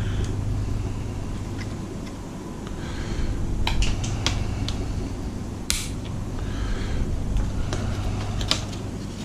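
Hand work on the plastic cartridge-slot housing of an Atari console with side cutters: scattered sharp clicks and a louder snap about six seconds in, over a steady low background hum.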